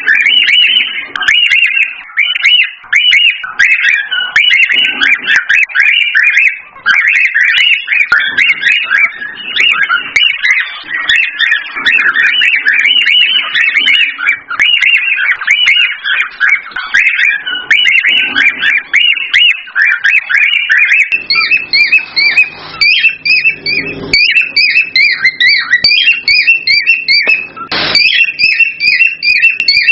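Cockatiels chirping excitedly in a dense, unbroken stream of short high whistled chirps, the agitated calling used as breeding stimulation. About two-thirds of the way through, a second, higher run of quick repeated chirps joins in.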